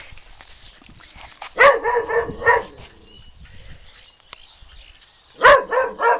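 Dog barking: a few short, high-pitched barks about one and a half seconds in, and another quick run of them near the end.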